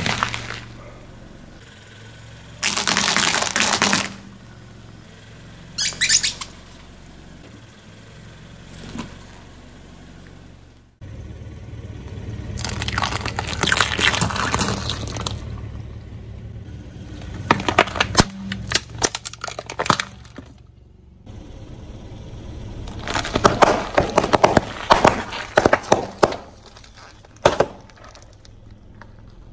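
A car tyre rolling slowly over objects and crushing them: a string of separate crunching and crackling bursts, the busiest a run of many sharp cracks and pops near the end, over a steady low hum from the car.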